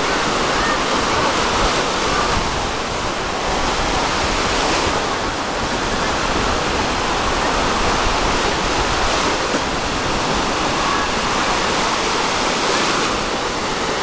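Small sea waves breaking and washing up a sandy shore in a steady, continuous surf noise.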